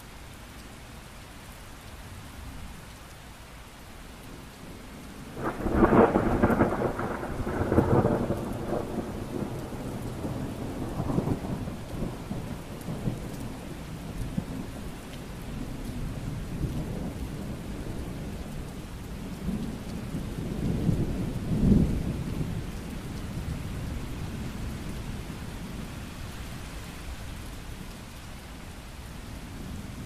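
Steady rainfall with thunder: a loud thunderclap about five and a half seconds in that rolls on for several seconds, then a second rumble swelling about twenty seconds in.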